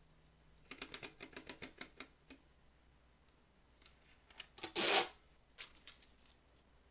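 Olivetti Divisumma 14 printing calculator's paper roll being advanced by hand, a quick run of about a dozen ratchet clicks, then the printed tape torn off against the tear edge in one short, loud rip.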